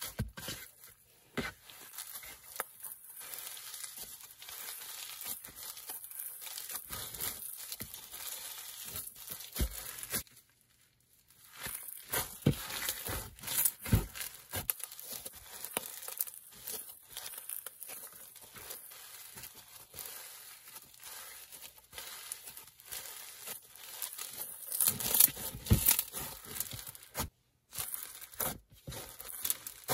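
Hands pressing and kneading a crunchy snowflake slime packed with crunchy beads: a dense run of small crackles and crunches, with a short silent break about ten seconds in and the loudest crunching a few seconds before the end.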